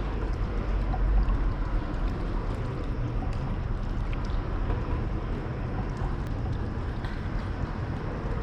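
Steady outdoor noise at the lakeshore: wind rumbling on the microphone over a continuous wash of water around the rocks, with a few faint small clicks.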